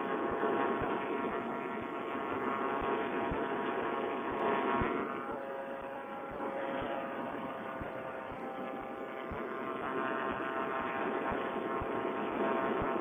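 Vittorazi Moster single-cylinder two-stroke paramotor engine running steadily in cruising flight, heard through a Bluetooth headset microphone that cuts off the highs, with short low thumps of wind buffeting on the mic.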